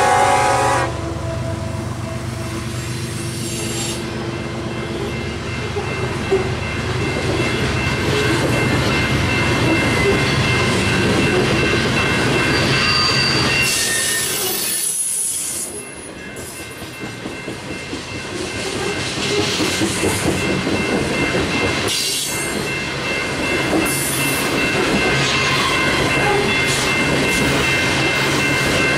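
A train of empty coal hopper cars rolling past: steady wheel rumble and clatter on the rails, with thin high squeals from the wheels. A locomotive horn chord trails off in the first second.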